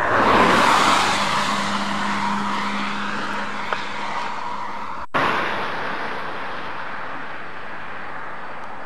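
Steady rushing road and wind noise of a moving vehicle, swelling in the first second, with a low hum for a few seconds; the sound breaks off for an instant about five seconds in.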